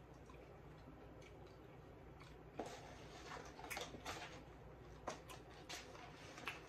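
Scattered soft clicks and rustles over a low steady hum: a plastic spoon scraping in a paper cup of red beans and rice, and a cardboard chicken box being picked up and slid across a wooden cutting board.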